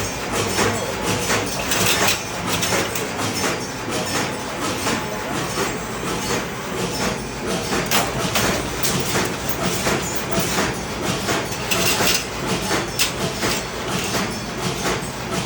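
Bonnell spring machine running, a continuous clatter of many quick metal clicks and knocks over a steady mechanical rumble.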